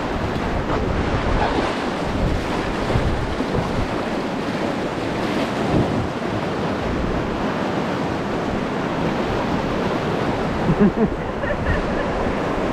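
Steady rushing of river whitewater around a paddled raft, mixed with wind noise on the microphone.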